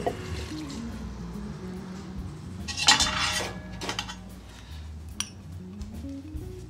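Glass and utensils clinking against a clay tangia pot while ingredients are added: a sharp clink at the start, a louder rattling clatter about three seconds in, and a single tick a couple of seconds later.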